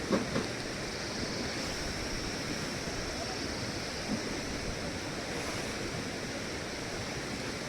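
Steady rush of running water, like a nearby mountain stream, with a few soft knocks just after the start and about four seconds in.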